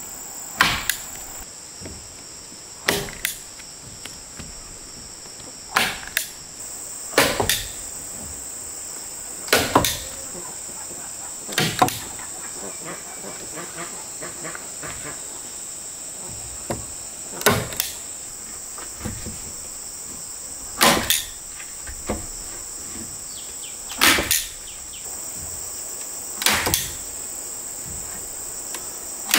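Sharp knocks, one every two or three seconds and sometimes two in quick succession, over a steady high-pitched insect chorus.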